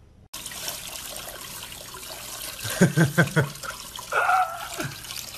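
Water running from a sink faucet onto a small dog being bathed, a steady hiss. A few short vocal sounds come about three seconds in, and a longer falling one about a second later.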